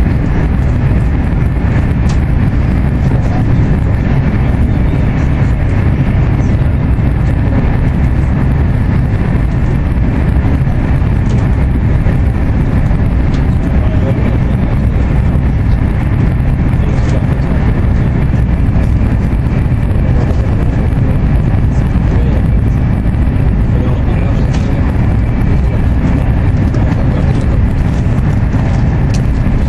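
A deep, steady rumble inside the passenger cabin of an AVE high-speed train running at high speed.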